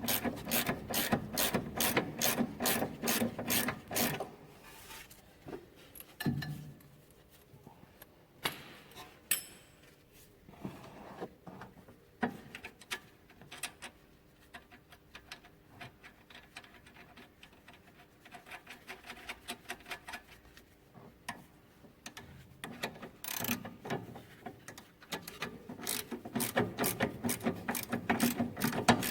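Ratchet spanner clicking as it runs a 17 mm nut onto a car's anti-roll bar drop link, the bolt held with a hex key. There is a fast, even run of clicks at the start and another near the end, with a few scattered tool clinks between.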